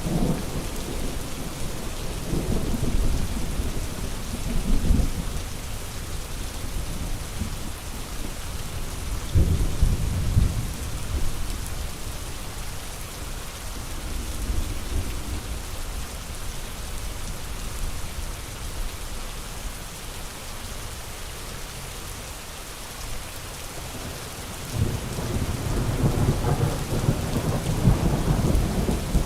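Steady heavy rain with rolling thunder: low rumbles swell a few seconds in and again about ten seconds in, and a longer rumble builds near the end.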